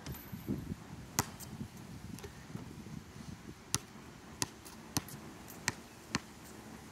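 Basketball bouncing on a hard court: one sharp bounce about a second in, then a run of five bounces roughly half a second apart in the second half as the ball is dribbled.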